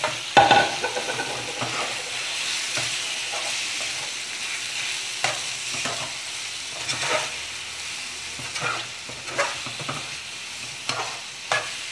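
Marinated chicken pieces sizzling in hot oil in a steel wok, stirred with a metal slotted spatula that knocks and scrapes against the pan at irregular intervals. The loudest knock comes about half a second in.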